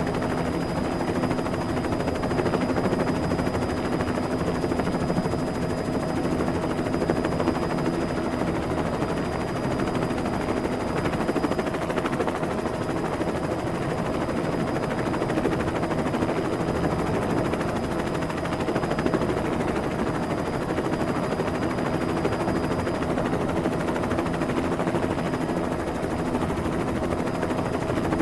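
Helicopter sound effect: a steady, unbroken helicopter noise with a constant hum of several steady tones beneath it.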